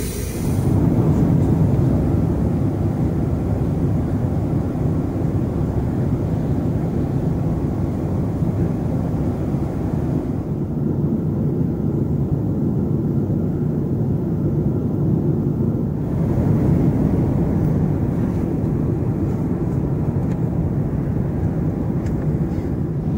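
Steady low rumble of a Boeing 767-400ER's jet engines and airflow, heard from inside the cabin. The higher hiss dims for several seconds midway through.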